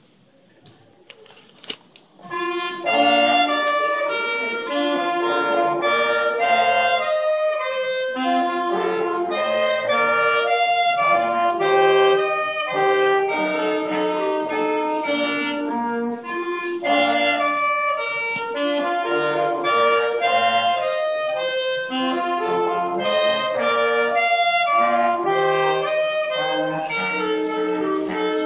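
A small wind quartet of young players performing together, several melodic lines of brass and woodwind tone overlapping. The playing begins about two seconds in, after a few faint clicks.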